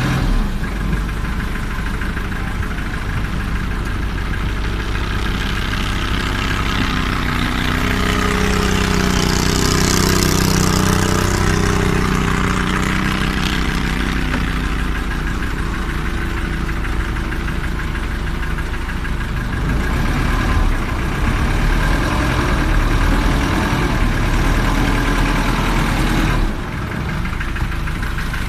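Engine of a small river ferry boat running steadily, heard on board. Its note shifts a little about a third of the way in, with a brief hiss around the same time.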